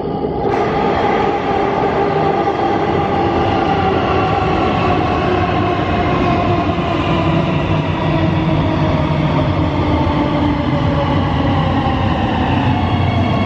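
Siemens Inspiro metro train running, its steady rolling noise overlaid by the whine of the electric traction drive: several pitched tones that slowly shift in pitch, with a higher set rising near the end.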